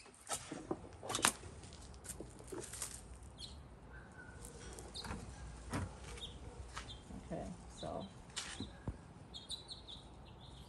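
Leaves and branches of a nectarine tree rustling as a gloved hand works through them to thin the fruit, with scattered sharp clicks, the loudest about a second in.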